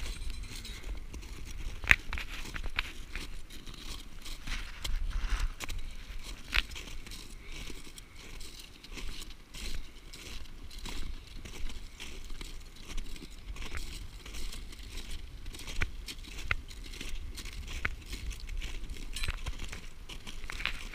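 Footsteps crunching on glacier ice as a roped party walks: an uneven run of crunches and clicks, with a low rumble underneath.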